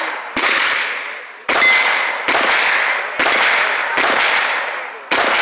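Gunshots at a shooting range: six sharp reports, about a second apart and slightly irregular, each trailing off in a long echo.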